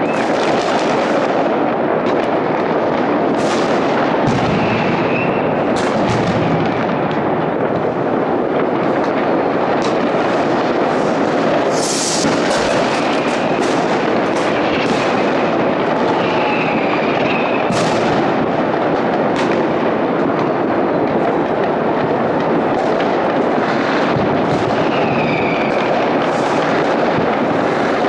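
New Year's Eve fireworks and firecrackers going off all across a city: a continuous din of many bangs and crackles blended together, with sharper nearer bangs standing out now and then, the strongest about twelve seconds in. A few short whistles sound about five, sixteen and twenty-five seconds in.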